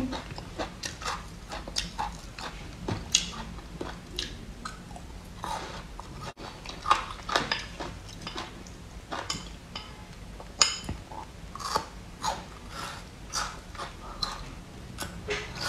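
A person chewing and biting into food, an irregular run of short wet smacks and crunches.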